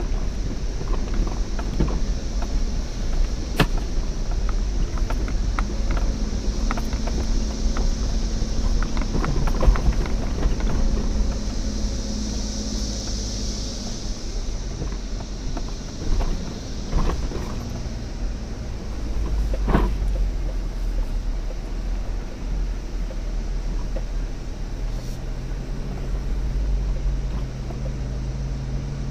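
Off-road vehicle engine running steadily at low speed, its note shifting a few times, with scattered knocks and clunks.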